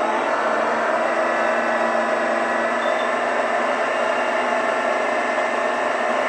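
Sence ESS Dual+ sound generator playing a simulated engine at steady revs through its speaker, with the RC truck's motor and gears whirring as the wheels spin in reverse.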